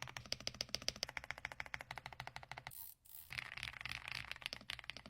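Fast typing on an AULA AU75 mechanical keyboard: a rapid, even stream of key clacks. About three seconds in, a brief hiss and a short gap break the stream, and then the typing resumes.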